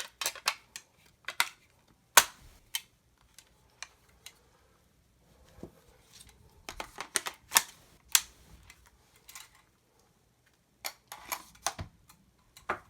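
Sharp metallic clicks and small knocks of a GSG AK-47 .22 LR rifle's parts being handled and fitted together during reassembly. They come as scattered single clicks and short clusters with quiet gaps between, the loudest a little after two seconds in.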